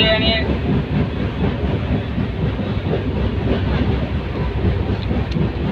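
Moving passenger train: a steady, continuous rumble from the train on the track.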